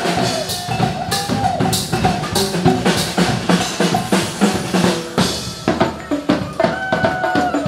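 Music with drums and percussion, a fast run of drum hits over a melody.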